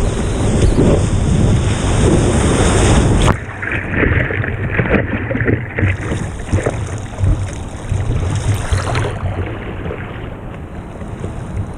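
Rushing water and wind on the microphone of a surfboard-mounted camera as the board rides a breaking wave through spray. About three seconds in it cuts off abruptly to quieter splashing and lapping water around the board.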